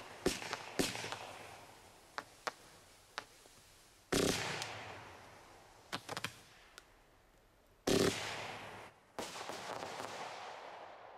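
Silent 25 mm consumer firework battery firing: a string of sharp, light pops, then three heavier bursts about four, eight and nine seconds in, each a rush of hiss and crackle that dies away.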